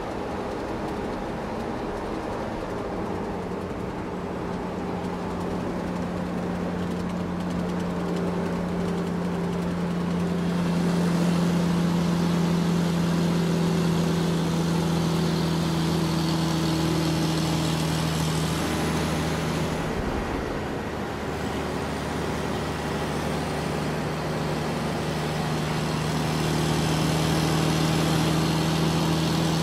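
A motor-vehicle engine running steadily with a low hum, its pitch drifting slightly, with a brief break about twenty seconds in.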